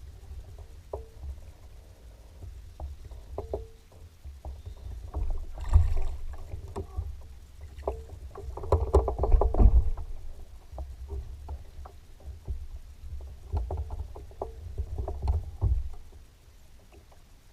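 Knocks, clicks and low rumbling thumps of things being handled aboard a small fishing boat, loudest about six seconds in and again around nine seconds, stopping at about sixteen seconds.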